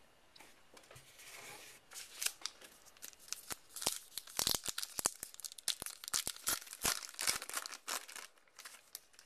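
A baseball card pack's wrapper being torn open and crinkled by hand, a dense run of quick, irregular crackles and rips for several seconds.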